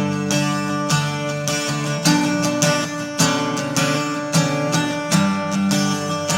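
Background music led by strummed acoustic guitar, with regular strums about every second.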